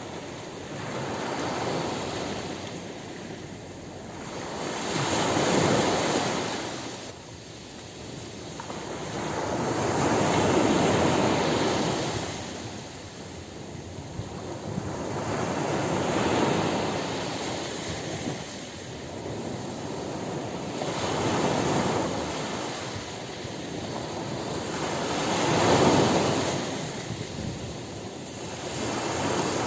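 Ocean surf breaking on a beach: waves swell and wash in about every five seconds, each rising to a rush of spray and falling back, with the loudest one near the end.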